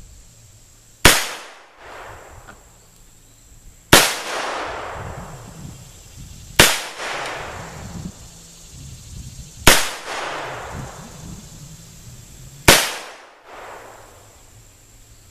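Five revolver shots from handloaded .38 Special rounds with 125-grain plated flat-nose bullets, fired at a slow, even pace about three seconds apart. Each shot is followed by a fading echo.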